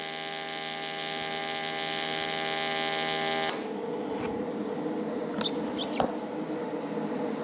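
AC TIG welding arc buzzing steadily on an aluminium plate, stopping suddenly about three and a half seconds in. A quieter steady hum follows, with a few light ticks near the end.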